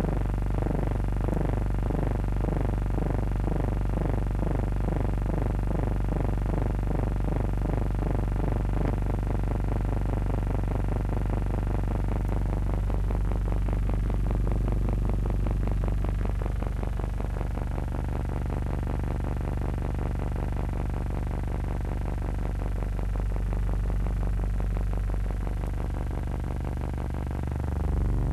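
Synthesizer background music: a steady low drone under a rapidly repeating falling tone, which gives way to a denser texture after about twelve seconds.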